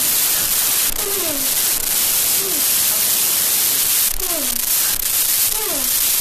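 Loud, steady static hiss, with a faint voice making short falling sounds now and then.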